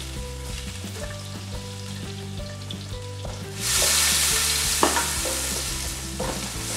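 Chopped onion frying in melted butter and oil in an aluminium pot while a wooden spoon stirs it. The sizzle jumps much louder about three and a half seconds in and stays loud, with a single knock of the spoon a little later.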